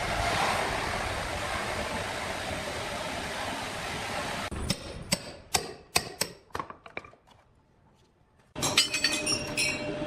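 Steady machinery noise that cuts off abruptly, followed by a series of sharp knocks and a brief near-quiet gap, then a sudden cluster of rapid clicks and clinks near the end.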